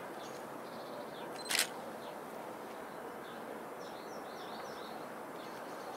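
Steady distant noise of a TEP70 diesel locomotive and its passenger train approaching, with small birds chirping and one sharp click about a second and a half in.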